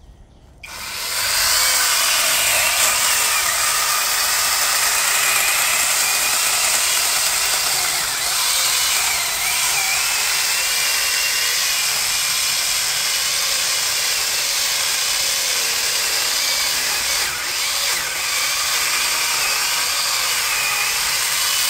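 A cordless 21-volt Eurox battery chainsaw with a 12-inch bar, cutting steadily through a thick jackfruit branch. It starts up about half a second in, and its whine wavers in pitch as the chain works through the wood.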